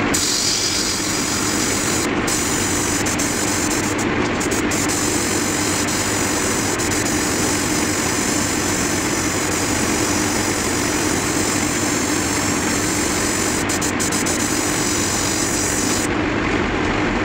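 Airbrush spraying: a steady hiss of compressed air over the hum of its running compressor. The highest part of the hiss cuts out briefly a few times.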